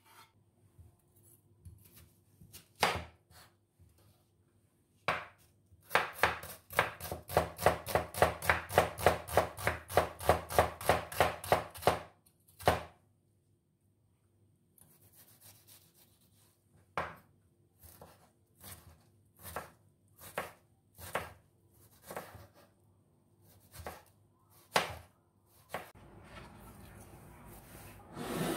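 Knife chopping food on a cutting board: a few single cuts, then a fast, even run of about four to five chops a second for several seconds, then slower single chops after a pause.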